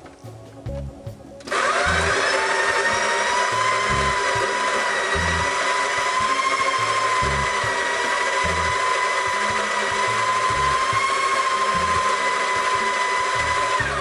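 Pasquini Lux doserless burr grinder grinding coffee beans. Its motor starts about a second and a half in, spins up briefly to a steady high whine, and cuts off at the end.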